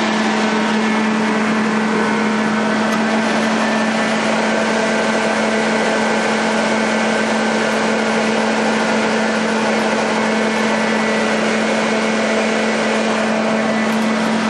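Propane-fired Onan 30 kW generator running steadily while powering a house, a constant engine hum with one strong unchanging tone. It is running normally.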